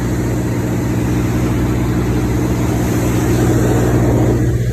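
Farm tractor's diesel engine idling steadily, getting a little louder about three to four seconds in.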